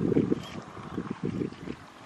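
Wind buffeting the microphone: an uneven, gusting low rumble that eases off in the second half.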